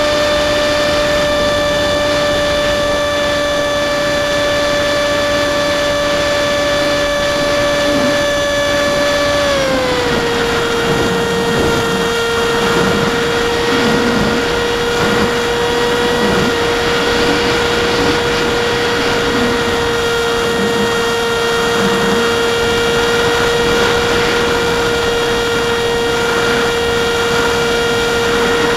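AXN Floater Jet's electric motor and propeller whining steadily, recorded onboard with air rushing past. About ten seconds in the whine drops a step in pitch as the motor slows, then holds steady at the lower pitch.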